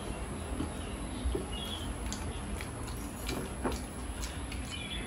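Eating by hand: chewing and mouth smacks, with scattered soft clicks of fingers working rice and curry on plates.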